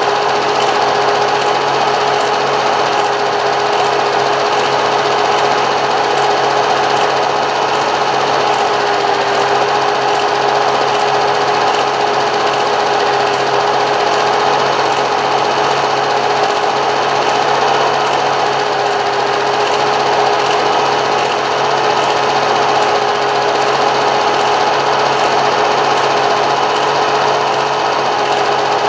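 A small machine running steadily with a fast mechanical whirr, a constant mid-pitched hum and dense hiss, unchanging throughout.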